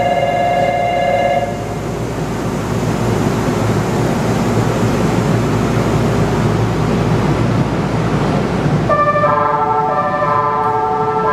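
Electronic signal tones and steady mechanical running noise around a suspended monorail car standing at its station platform with doors open. A steady tone cuts off about a second and a half in. An even mechanical noise follows, and about nine seconds in an electronic chime of several stepped tones begins.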